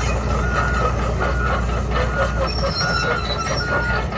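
Heavy machinery engine running steadily, with a reversing alarm beeping in a regular pattern a bit more than once a second and metallic clanking and squealing over it.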